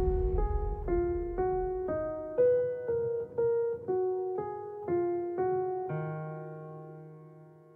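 Background music: a piano melody of single notes, about two a second, ending on a held chord that fades out.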